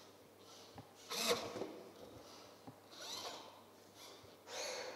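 Robotic drawing arm's pen scratching across paper in three short strokes, the loudest about a second in.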